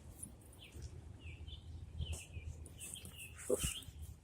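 Small birds chirping in short, repeated calls. A sharp knock about two seconds in and a louder one near the end.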